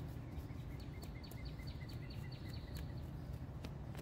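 Three-pronged hand cultivator scratching and clicking through loose garden soil over a steady low outdoor rumble. From about half a second in to about three seconds, a run of short high chirps sounds, about five a second.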